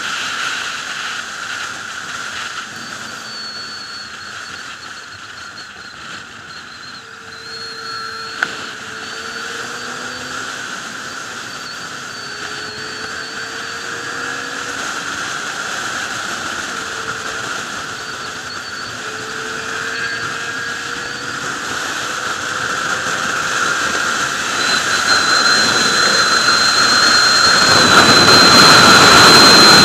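Sport motorcycle riding at speed: rushing wind noise on the microphone with the engine's drone underneath, its pitch rising in several short pulls. One sharp click about eight seconds in, and the wind and engine grow steadily louder over the last several seconds as the bike speeds up.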